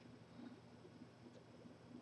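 Near silence: faint room tone with a low hum and one faint tick about a second and a half in.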